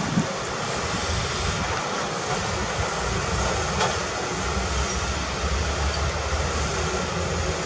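Heavy earthmoving machinery running steadily, a low engine rumble under a broad mechanical noise, with a sharp clank a little under four seconds in.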